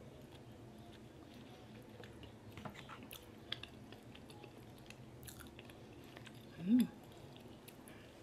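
Close-up chewing of a mouthful of turkey chili with beans, with faint scattered clicks. A short hummed "mm" comes about two-thirds of the way through.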